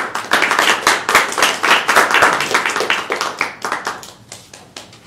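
A small audience applauding: the clapping starts all at once, holds for about three seconds, then thins out to a few scattered claps near the end.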